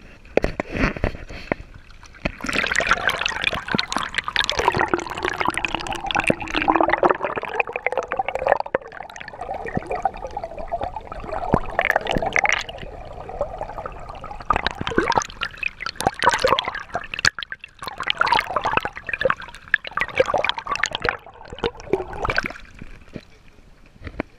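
Lake water sloshing and gurgling around a GoPro in its waterproof housing as it is held under the surface beside a rowboat, with many irregular knocks and splashes; it quietens near the end as the camera comes back out of the water.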